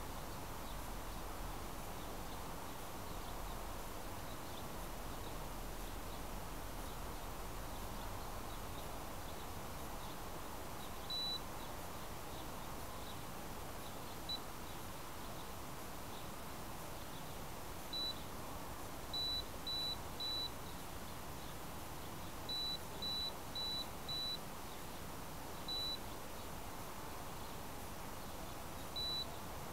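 Short high electronic beeps from a downed quadcopter with its motors stopped, single or in quick runs of two to four from about a third of the way in, over a steady outdoor hiss.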